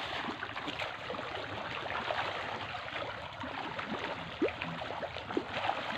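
Pond fish feeding at the water surface on floating feed: a steady, dense crackle of many small splashes and plops.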